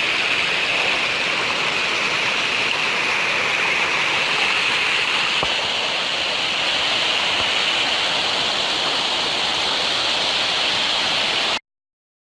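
Steady rushing of running water, cutting off abruptly near the end.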